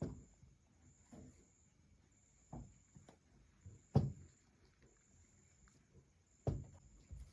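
Soft, irregular thumps and knocks, the loudest about four seconds in, over a faint high-pitched tone that pulses on and off about once a second.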